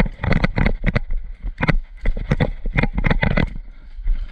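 Running footsteps on wet grass with gear rattling, about three to four footfalls a second, over a steady low wind rumble on the microphone.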